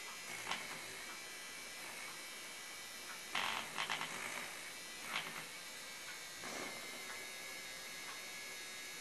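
Handheld battery-powered milk frother running steadily with a thin electric buzz, its wire whisk whipping milk into foam in a ceramic cup. The sound gets louder for short spells about three and a half seconds in and again around five seconds.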